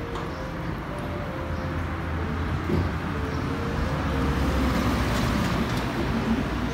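City street traffic with a motor vehicle's engine passing close by, growing louder from about four seconds in.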